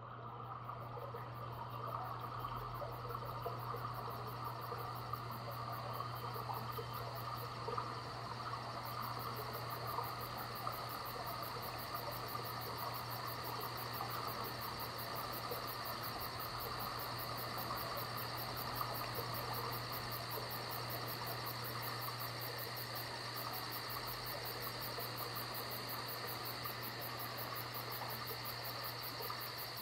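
Crickets chirping in a steady, fast continuous trill, over a low steady hum. The sound fades in just as it begins.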